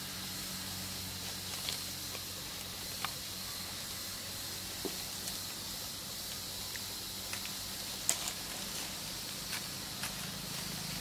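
Steady high hiss of forest background, with scattered faint ticks and crackles of dry leaf litter stirred by the macaques.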